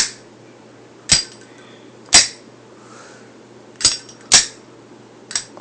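Zippo lighter's hinged metal lid flipped open and snapped shut again and again: six sharp metallic clinks, about a second apart, with two in quick succession a little past the middle.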